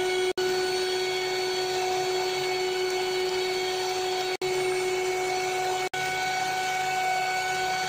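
Electric hand mixer running steadily, its twin beaters whipping eggs and powdered sugar until the yellow mixture turns white and fluffy. The motor hum holds one steady pitch and cuts out for an instant three times.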